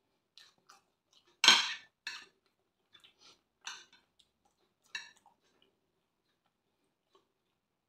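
Metal spoon clinking and scraping against a glass baking dish while scooping rice. A sharp clink about a second and a half in is the loudest, followed by several softer clinks over the next few seconds.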